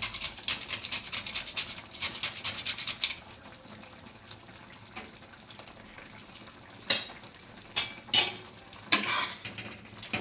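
A whole nutmeg grated over the pot in quick rasping strokes for about the first three seconds. After a pause, from about seven seconds in, a spoon clinks and scrapes against the pan a few times as the mixture is stirred.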